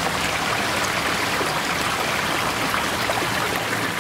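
Small rocky stream running over and between boulders: a steady rush of flowing water.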